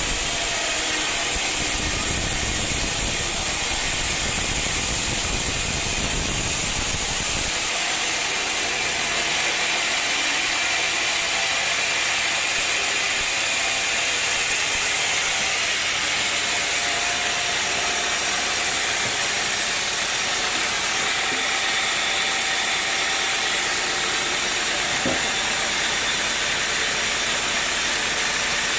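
Sawmill machinery running steadily with a loud, even hiss. A low rumble drops out about seven seconds in.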